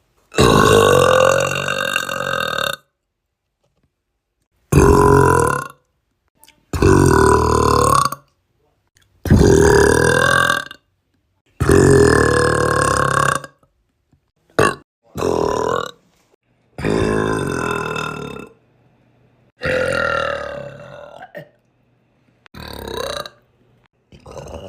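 A person's loud, drawn-out belches, about ten one after another. Each lasts one to two and a half seconds, with a pitch that wavers and slides, and each is followed by a short silence. One just past the middle is very short.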